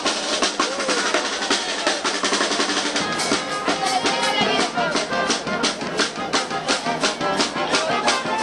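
Drum-driven music: drums beating a fast, steady rhythm of about four strokes a second, with other pitched sounds wavering over it.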